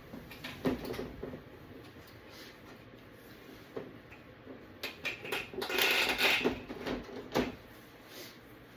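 Parts of a TV being handled during disassembly: scattered clicks and knocks, then a busier run of knocks with a scraping, rattling stretch about six seconds in, the loudest part.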